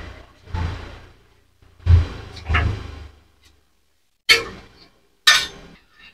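Martabak dough being flung and slapped down on the oiled table as it is stretched thin: five slaps and flaps about a second apart, the last two sharper.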